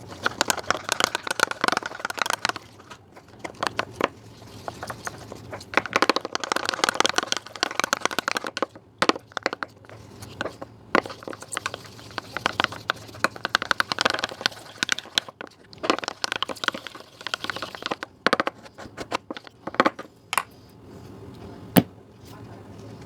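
Homemade soap slime being worked by hand, giving dense bursts of sticky crackling and popping clicks in several stretches of a few seconds, with single louder pops in between.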